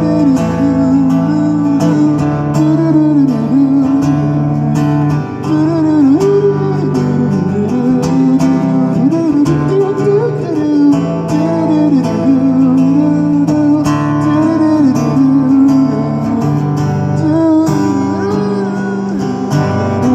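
Live acoustic guitar strumming chords while a voice sings a wavering, bending melody without clear words over it.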